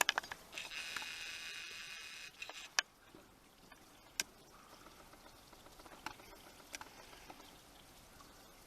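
Brief scratching and crackling as flaky deposit is picked and scraped off a tunnel wall, then a few faint isolated clicks in near-quiet.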